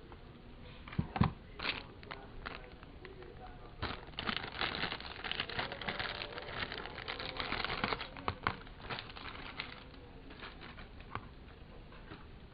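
Laptop packaging being handled: a sharp knock about a second in, then several seconds of crinkling and rustling as wrapping is pulled and unfolded, trailing off into scattered light ticks.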